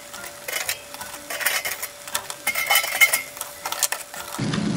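Metal kitchen tongs clicking and scraping as crisp toasted baguette slices are set down one by one on a wooden cutting board, over the faint sizzle of tomato sauce simmering in a frying pan.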